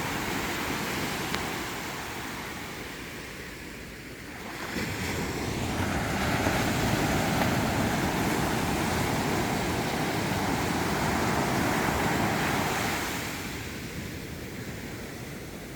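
Sea surf washing onto the beach. The wash falls away about three to four seconds in, then a wave surges in about five seconds in and runs for several seconds before ebbing near the end.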